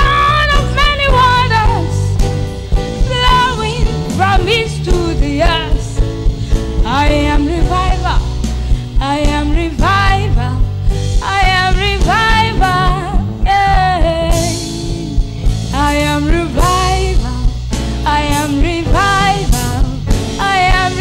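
Choir singing a gospel song over a band with bass and drums, the voices held in long notes with vibrato over a steady beat.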